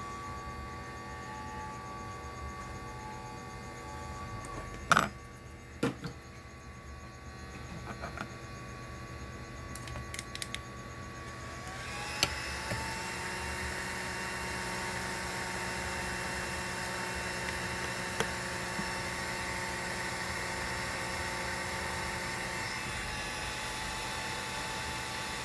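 A few sharp clicks. Then, about twelve seconds in, a hot air rework station's blower switches on and runs with a steady hiss and a whine that rises briefly and then holds one pitch.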